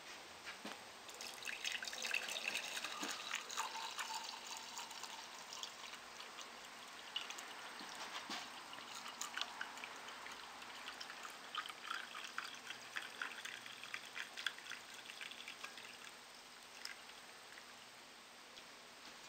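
Borax solution pouring in a thin stream from a stainless steel pot into a drinking glass: a faint, uneven trickle with small drips and splashes, tailing off near the end.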